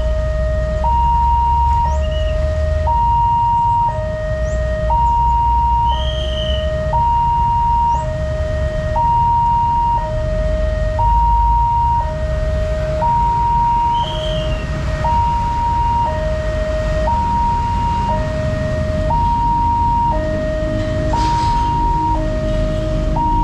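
Railway level-crossing warning alarm sounding a steady two-tone alternation, a high tone and a low tone each about a second long, over a low rumble of road traffic.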